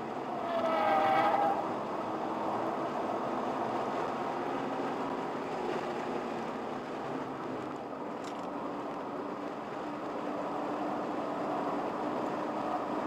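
Steady engine, tyre and wind noise of a car driving, heard from inside the car. About a second in there is a brief high-pitched whine that rises and falls.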